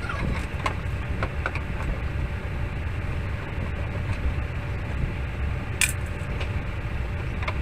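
Steady low background rumble with scattered light clicks and one sharp click about six seconds in, from a screwdriver working on a CRT television's plastic back cover.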